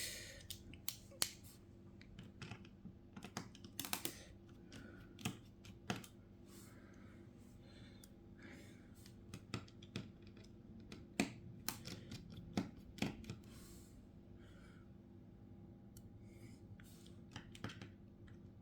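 Faint, irregular clicks and taps of a small precision screwdriver and hand tools working on an iPhone 7, a few sharper clicks past the middle.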